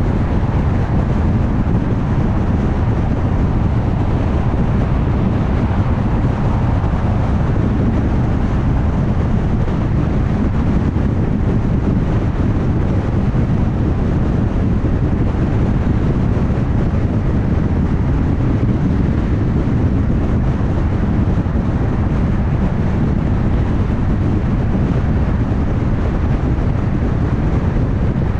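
Steady road noise of a car cruising at highway speed: an even rumble of tyres and wind that holds constant throughout.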